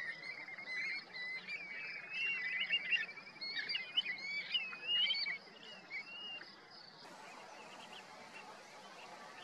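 Flock of resting shorebirds calling: a busy chatter of short, overlapping whistled notes that swoop up and down, loudest in the middle. The calls stop about seven seconds in, leaving a faint steady outdoor hiss.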